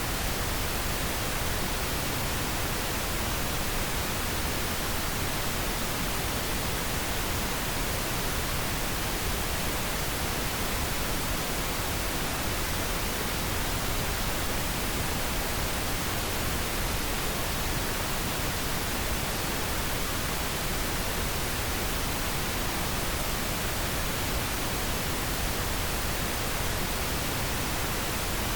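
Steady pink noise: an even, unchanging hiss spread across the whole range, with no breaks or events.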